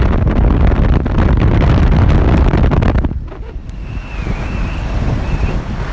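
Wind buffeting the microphone from a moving vehicle, with a rumble of road and engine underneath. The buffeting eases about three seconds in, and a thin wavering whistle follows in the second half.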